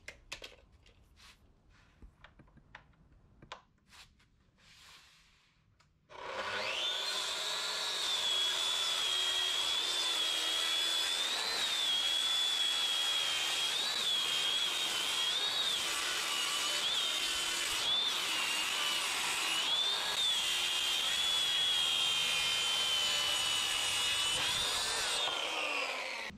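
Circular saw on a guide rail ripping an oak board lengthwise. After a few seconds of faint clicks and knocks, the saw starts about six seconds in and runs through the cut with a steady high whine that wavers several times. Near the end the whine falls in pitch as the saw winds down.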